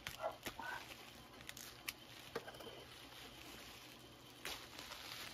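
Bubble wrap being handled and unwrapped by hand: faint crinkling with scattered small crackles and clicks, a few brief plastic squeaks in the first second.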